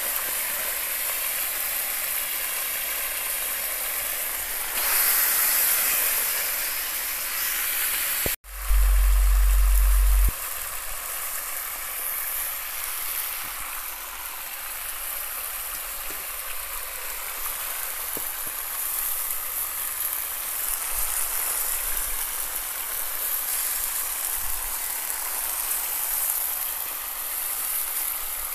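Nutria meat frying on a sadj, a hot iron pan, with a steady sizzling hiss. A little under a third of the way in, the sound cuts out for an instant and then a loud low rumble lasts about two seconds before the sizzle returns.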